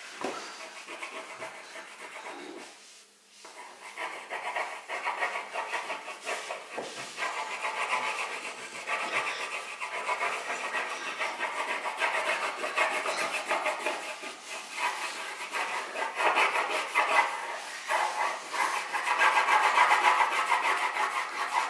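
Wax crayon scribbled rapidly back and forth on paper over a wooden tabletop: a continuous scratchy rubbing. It breaks off briefly about three seconds in, then goes on and grows louder near the end.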